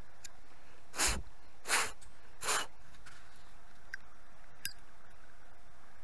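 Thumb spinning the flint wheel of a water-soaked Zippo lighter: three short rasps about three-quarters of a second apart, starting about a second in. The lighter does not catch because it has just been dunked in water.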